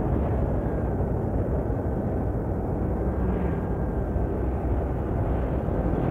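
Steady rumble of road, engine and wind noise from a vehicle driving behind an intercity bus, with a faint thin whine in the middle.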